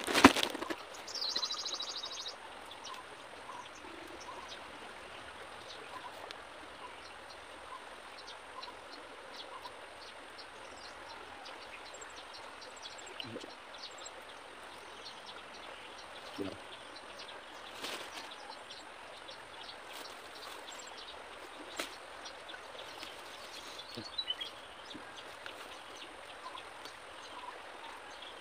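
Outdoor forest ambience with many faint, high bird chirps over a steady background hiss. There is a loud knock right at the start and a short buzzy call about a second in. A few soft clicks and rustles come from hands tying rope on a bamboo spring trap.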